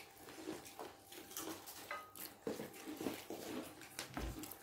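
Quiet room with faint, scattered clicks and rustles of people eating from plates.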